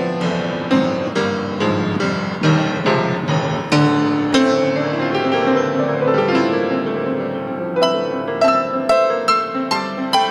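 Piano playing: a dense, continuous run of struck notes ringing over one another, with a brighter cluster of high notes starting near the end.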